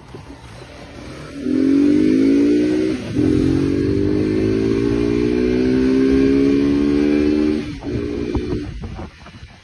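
Motorcycle engine revving hard and accelerating through a wheelie, its pitch climbing steadily, with a short break about three seconds in. The throttle shuts off near the end, followed by a brief blip, and then mostly wind noise.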